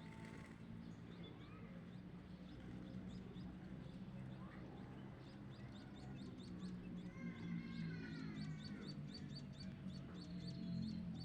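Small birds chirping in quick, repeated high notes, thickening in the second half, with one lower falling call partway through, over low steady background music.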